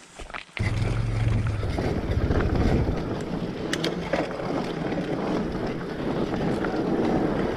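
An adventure motorcycle's engine catches suddenly about half a second in and keeps running under throttle.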